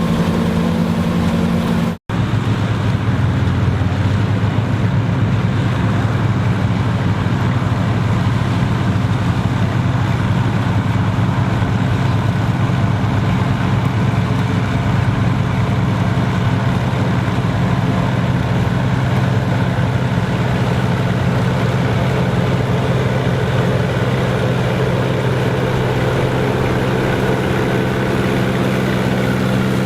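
Engine of vintage farm harvesting machinery running steadily under load, with a steady low drone. The sound drops out for an instant about two seconds in and resumes at a slightly different pitch.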